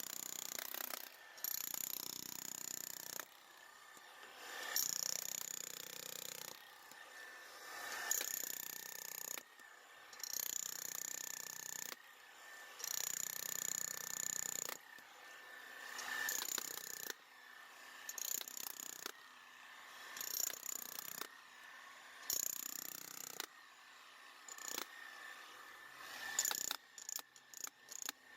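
Steel shovel blade scraping and cutting into soil while trenching, in repeated strokes about every two seconds, with a few quick scuffs near the end.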